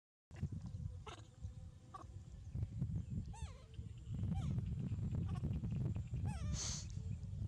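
Baby rhesus macaque giving several short squeaky calls that rise and fall in pitch, with a brief harsh shriek near the end. A low rumbling noise runs underneath.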